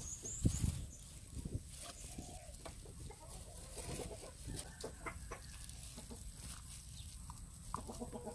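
Chickens clucking in the background. Soft knocks and scrapes come as grated ube is tipped and scraped from a dish into a stainless steel bowl, loudest in the first second or so.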